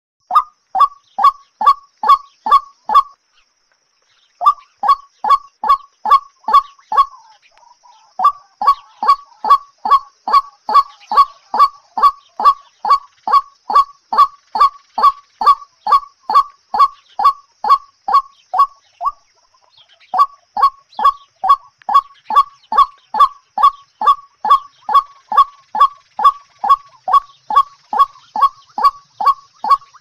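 A bird's call, one short note repeated very evenly about two and a half times a second, in long runs broken by brief pauses.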